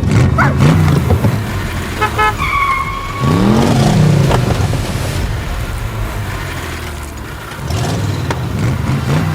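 Vehicle engine sound effects revving up and down in repeated rising and falling sweeps, with a short horn toot a little over two seconds in.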